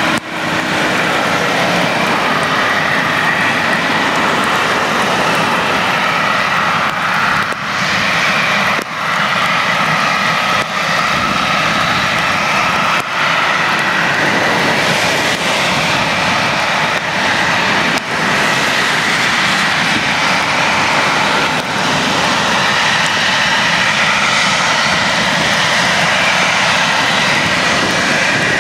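Boeing 737-800's twin CFM56-7B turbofan engines running at taxi power as the jet taxis: a steady whine that wavers slightly in pitch over a constant rushing noise.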